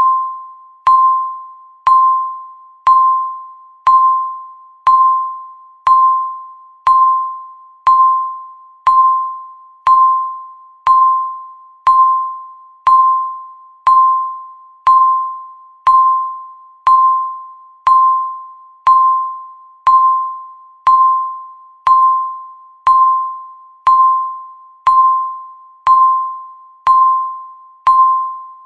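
A countdown timer's beep: a single chime-like tone struck once a second, each stroke fading away before the next.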